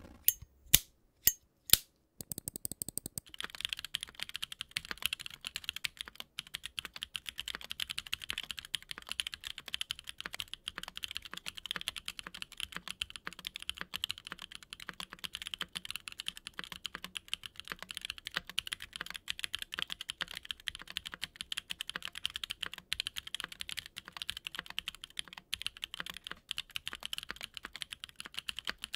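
Typing on a Platinum PT990 65% custom mechanical keyboard with Prevail Nebula switches, TX stabilizers, an aluminium plate and GMK keycaps: four single keystrokes in the first two seconds, then steady, fast typing of crisp, clacky keystrokes.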